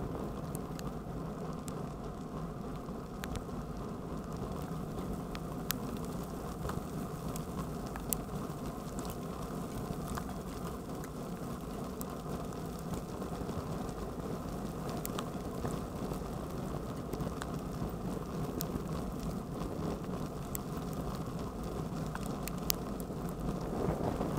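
Bicycle rolling along a wet road, a steady rumble of tyres and wind on the handlebar-mounted microphone, with sparse sharp ticks of hail striking the bike. The wind noise swells near the end.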